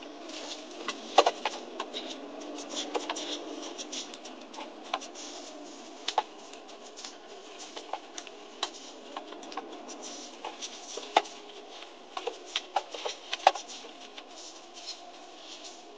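Cabin noise of an off-road vehicle driving over desert sand: a steady rumble-free hiss with many irregular sharp clicks and rattles, the loudest about a second in, at about eleven seconds and near thirteen and a half seconds.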